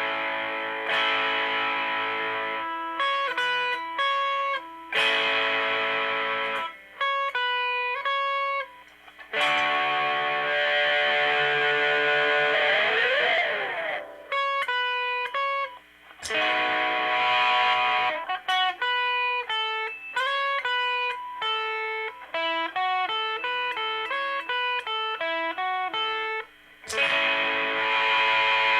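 Electric guitar played through the amp's dirty, overdriven channel. Held chords ring out between quick runs of single notes, and a held note is bent up and down near the middle.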